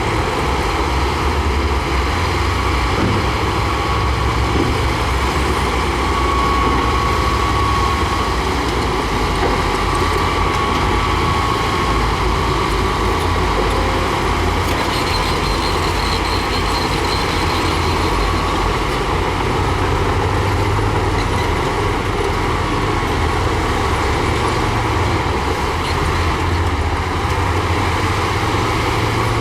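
Diesel engines of heavy earthmoving machinery, a bulldozer and dump trucks, running steadily with a low rumble and a faint high whine now and then.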